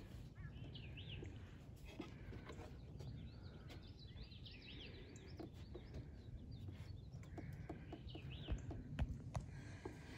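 Several birds chirping and singing in repeated short, high phrases, with scattered knocks of footsteps on a wooden boardwalk, the loudest near the end.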